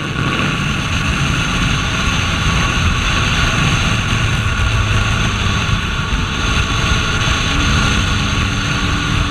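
KTM RC 390's single-cylinder engine running steadily while the bike cruises at speed, mixed with heavy wind rush on the microphone.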